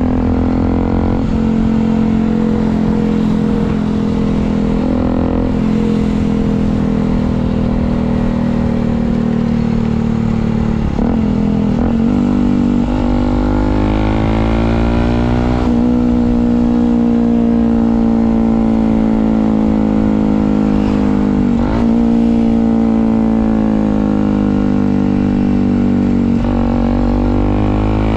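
Yamaha WR125 supermoto's 125 cc single-cylinder four-stroke engine running through an aftermarket exhaust while riding. The engine note is steady and slowly falling at first. From about halfway it climbs and drops sharply several times as the rider accelerates and changes gear.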